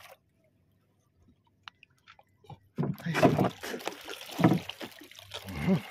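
Near silence with a few faint ticks, then about three seconds in a loud, uneven stretch of handling and knocking noise from movement in a small outrigger fishing boat, swelling several times.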